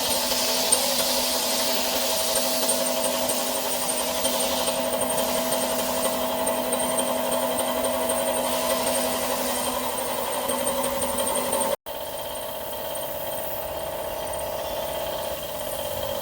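Hitachi Seiki VM50 CNC mill roughing a steel mold with a 35 mm cutter turning at 1000 rpm: a steady spindle whine with the gritty noise of the cutter chewing through steel. The sound drops out for an instant about twelve seconds in, then carries on a little quieter.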